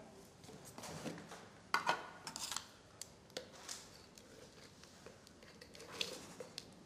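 Scattered light clicks and knocks of a plastic jar being handled: its screw cap is taken off and set down on the bench, and the jar is tilted to tip powder into a glass beaker of water. The sharpest knocks come about two seconds in, with a few more near the end.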